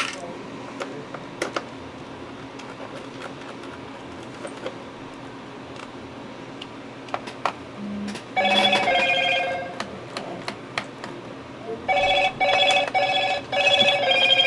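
An electronic telephone ringer warbling between two pitches: one ring about 8 seconds in, then a run of short rings from about 12 seconds. Under it are small clicks from a screwdriver working the Phillips screws of a laptop's bottom cover.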